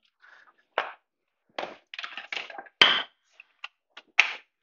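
Hand tools being handled in a shop: a string of irregular metallic clicks and knocks, the sharpest about three seconds in and another near the end.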